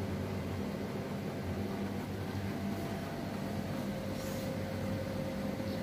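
Room tone: a steady low machine hum with a faint high tone above it, and a faint rustle about four seconds in.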